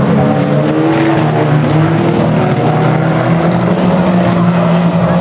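A pack of banger-racing cars running round the track, several engines running loudly together with their pitches overlapping and shifting as the cars pass.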